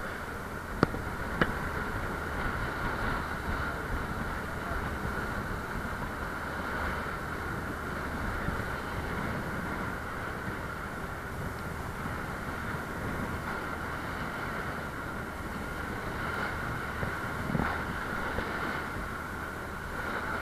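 Motorised outrigger boat (bangka) under way: a steady engine drone under the rush of water along the hull and outriggers, with wind buffeting the microphone. Two sharp knocks about a second in.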